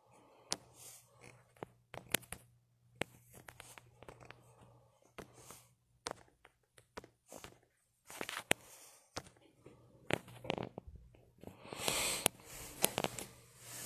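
Faint handling noise from a handheld phone: scattered clicks and taps with some rustling, louder for a moment about twelve seconds in, over a steady low hum.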